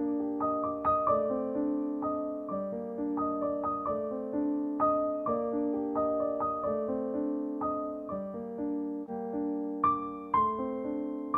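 Background music: gentle piano or electric piano playing a melody of struck notes that each fade away.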